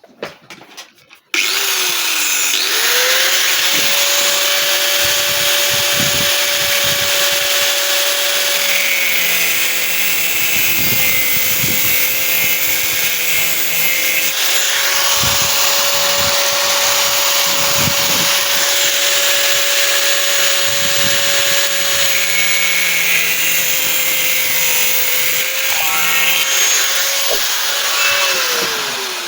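Handheld electric power tool trimming a metal door-hinge part. It starts about a second in and winds up to speed, then runs loudly with a steady whine and hiss that dips briefly as it bites, and winds down near the end.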